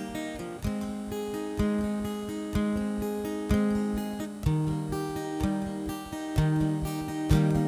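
Acoustic guitar with a capo, strummed in a slow steady pulse of about one strum a second. Each chord rings on between strums, and the bass note changes every few strums as the chords move.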